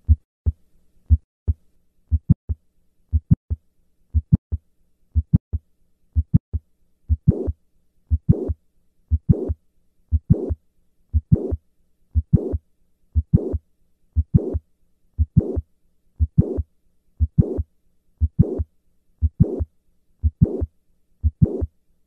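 Recorded heart sounds of mitral valve prolapse, beating about once a second. Each beat has a mid-systolic click followed by a late systolic murmur before the second heart sound. The first beats are short and sharp, and the murmur comes in louder and longer from about seven seconds in.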